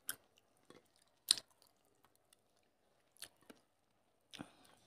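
Faint eating sounds as rice and fish curry are eaten by hand: a few short, wet chewing clicks and lip smacks, the loudest about a second in.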